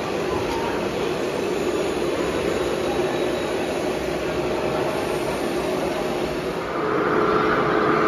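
Steady mechanical hum of radio-controlled model construction machines running. About seven seconds in, a louder hum with higher held tones takes over.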